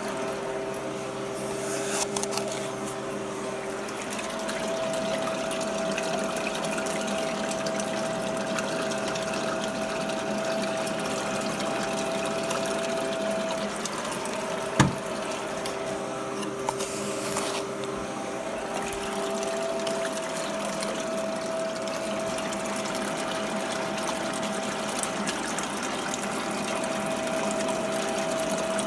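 Water running steadily through a small Dream Mat mini-cell reduction sluice, with a steady hum under the flow. One sharp click about halfway through.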